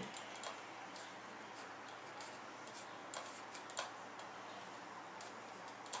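A computer mouse clicking, faint and at irregular intervals, a handful of clicks in all, over a steady hiss.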